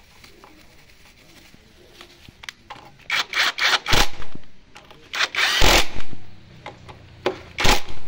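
Cordless power driver with a socket running in short bursts as it tightens the caliper mounting bolts of a motorcycle front disc brake. Several quick bursts come about three to four seconds in, a longer run near six seconds, and two short ones near the end.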